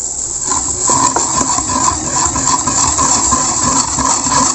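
Wire balloon whisk beating cake batter by hand in a bowl: a steady swishing and scraping of the wires, pulsing a few times a second with the strokes, starting about half a second in.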